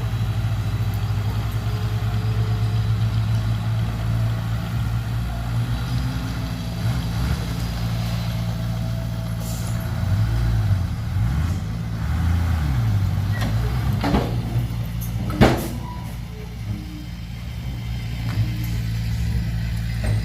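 Heavy diesel engine of a dump truck or bulldozer running steadily, its pitch rising and falling a few times about halfway through as it is revved. A sharp knock, the loudest sound, about three-quarters of the way in, with a smaller one just before it.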